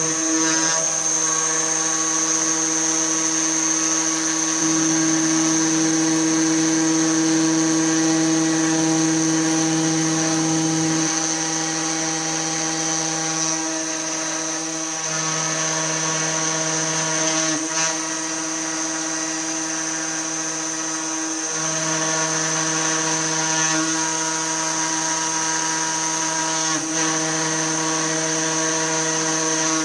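CNC 2418 desktop router's spindle motor running with a steady whine as its bit engraves birch plywood. The whine and cutting noise shift in strength every few seconds as the bit moves between cuts.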